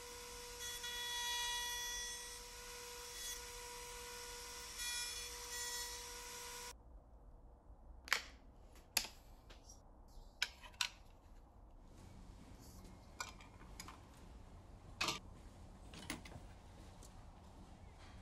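DeWalt router running in a router table with a steady high whine, its bearing-guided bit cutting the edge of a plywood board with a few louder swells as the wood is fed. The whine stops abruptly about seven seconds in, and scattered sharp knocks and clicks of handling the board and router follow.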